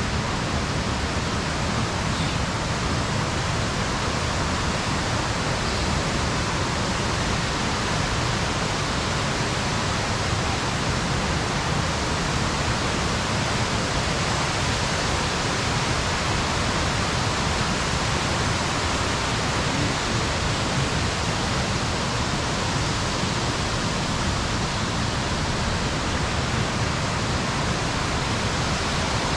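Steady rush of the water of Pistyll Rhaeadr, a 76 m single-drop waterfall, an even, unbroken noise.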